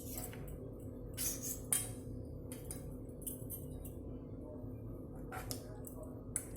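A few light clicks and knocks of marinated chicken pieces being threaded onto wooden skewers in a bowl, over a steady low hum.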